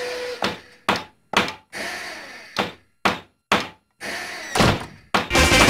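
Workshop hammering sound effects: a series of sharp wooden knocks, roughly two a second with some gaps. A louder, heavier bang comes near the end.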